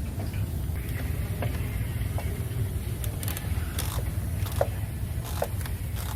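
SUV engine idling with a steady low rumble. Scattered, irregularly spaced clicks and light knocks sound over it.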